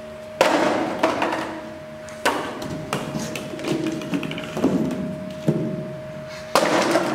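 Small plastic balls thrown across a tiled floor, bouncing and knocking into plastic cups: a series of sharp knocks and clatters, about seven, each dying away quickly.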